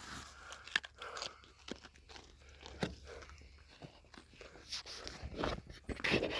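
Deer biting and chewing carrots up close, with irregular crisp crunches.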